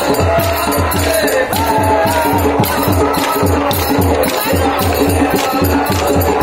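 Loud music: a fast, steady drum beat with a wavering melody line above it.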